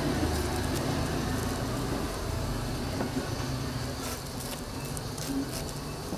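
Food sizzling on a flat-top griddle as toast fillings cook, with a few light clicks of utensils about two thirds of the way through.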